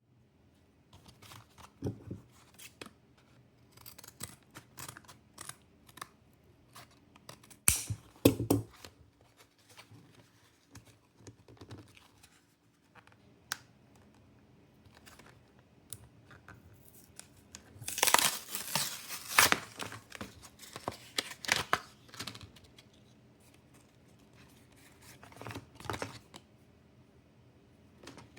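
Foil booster-pack wrappers being torn open and crinkled, with scattered sharp crackles and handling noises. The loudest, densest stretch of tearing and crinkling comes in the second half, with two sharp rips about a third of the way in.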